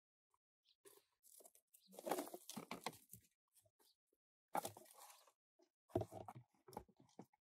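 Faint scraping, rustling and light knocks as round pots are picked up and handled among dry leaves and debris, in three short spells.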